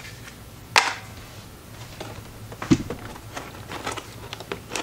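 Cardboard graphics-card box being handled on a desk: a sharp click about a second in, another near the middle, then a string of light taps and rubs as hands take hold of the box.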